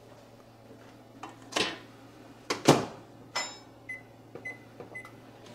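Over-the-range microwave in use: a few sharp clunks and knocks of the door and a food container, the loudest about two and a half seconds in. Then three short keypad beeps, about half a second apart, as the buttons are pressed.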